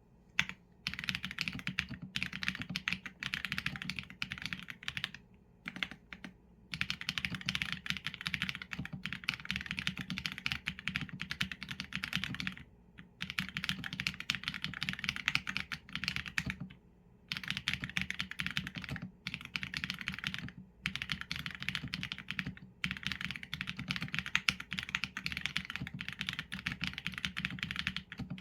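Fast continuous typing on a mechanical keyboard with Leobog Graywood v4 linear switches and PBT keycaps, a dense patter of key clicks broken by brief pauses every few seconds.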